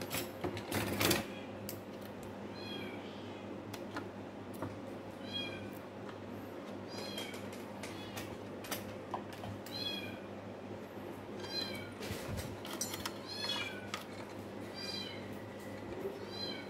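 A cat meowing repeatedly: about ten short, high-pitched meows, roughly one every second and a half. Sharp clicks and knocks from wires and connectors being handled come through as well, the loudest about a second in.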